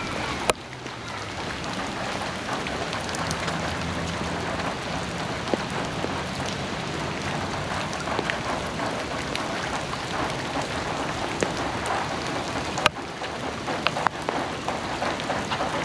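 Steady rain falling, with many small drop ticks through it. Two sharp clicks stand out, one about half a second in and one late on.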